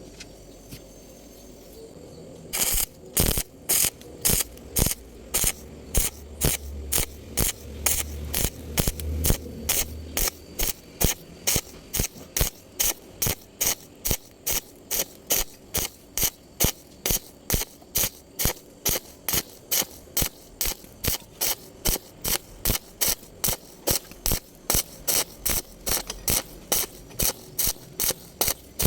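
Welding arc struck in short, evenly spaced bursts, about two a second, typical of stitch or pulse welding.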